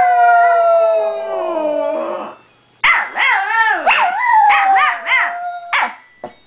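Shih Tzu howling ('singing'): a long howl sliding slowly down in pitch that stops about two seconds in, then after a short pause a second, wavering howl of about three seconds.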